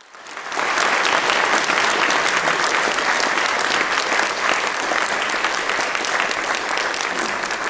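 Audience applauding: a crowd's clapping swells up within the first second and holds steady, easing slightly near the end.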